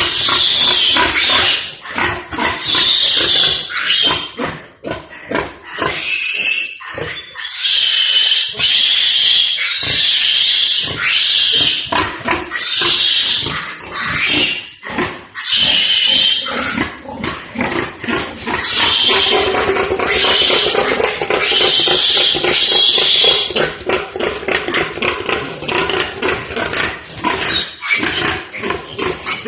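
Pigs squealing loudly, over and over, in shrill squeals about a second long each.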